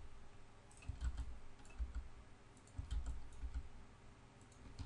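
Clicks and soft knocks of a computer keyboard and mouse, coming in small clusters roughly once a second.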